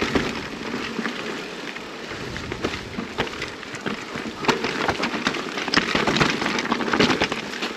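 Electric mountain bike moving over stony, gravelly trail: tyres crunching on loose rock, with many irregular clicks and knocks from stones and the rattling bike.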